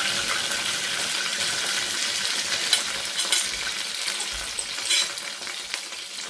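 Milk-soaked semolina sizzling in hot oil and melted sugar in a non-stick kadhai, the sizzle slowly dying down while a spoon stirs and clicks against the pan a few times.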